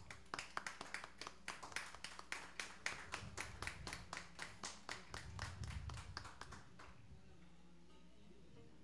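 Applause: hands clapping in distinct, evenly spaced claps, about four or five a second, that stop about seven seconds in.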